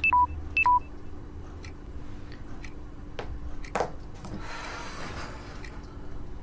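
Short two-note electronic beep, a high note then a lower one, sounding twice in quick succession. It is followed by sparse faint ticks and a brief soft hiss.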